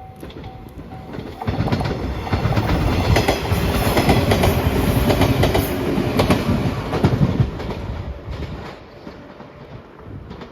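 A level-crossing warning bell ringing in a steady repeated tone, then a passenger train passing the crossing at speed. Its wheels clack over the rail joints for about six seconds before the sound fades.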